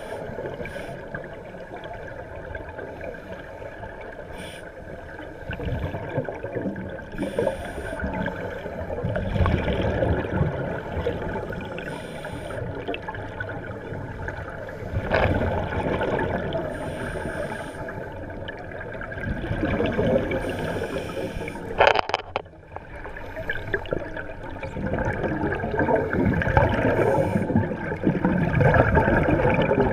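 Scuba divers' regulator exhalations bubbling and gurgling underwater, swelling louder every few seconds with each breath out. One sharp click partway through.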